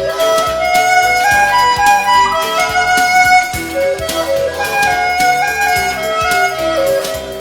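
Music: a melody moving in clear stepped notes over an accompaniment with a light beat.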